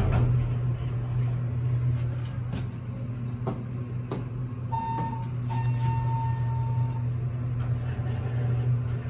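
Elevator running with a steady low hum and a few light clicks. About five seconds in, a high electronic tone sounds for about two seconds, with a short break near its start.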